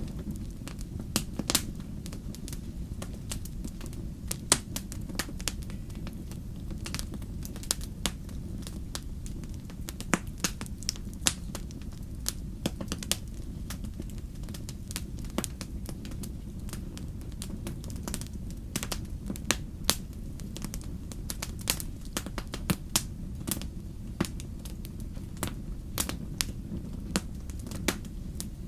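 Wood fire crackling, with sharp irregular pops and snaps over a steady low rumble of burning.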